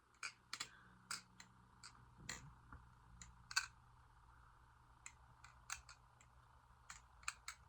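Clone of a Squid Industries Krake Raken balisong being flipped: its handles swing and strike closed in a run of irregular sharp clicks and clacks, thinning out for about a second and a half past the middle.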